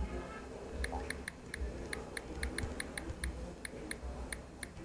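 Smartphone on-screen keyboard clicks as a text message is typed: an irregular run of short, high, identical ticks, about three or four a second, starting about a second in, over a low background rumble.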